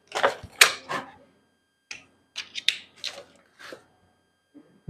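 Hands handling a Nikon Z6 II mirrorless camera and its packaging: a short burst of rustling and handling noise, then a few light, separate clicks and taps as the camera body is worked.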